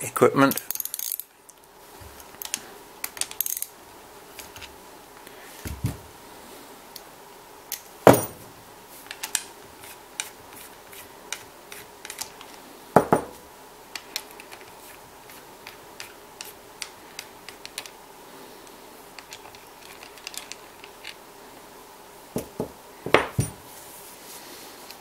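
Irregular small metal clicks and clinks of hand tools and screws as the two front-plate screws are undone on a Biax electric scraper, with three louder sharp knocks of metal on the bench.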